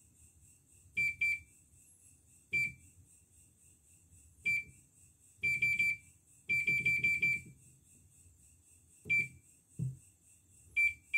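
Portable embroidery machine's control-panel buttons beeping as they are pressed: short high beeps, each with a soft click of the key, coming singly and in quick runs of four or five.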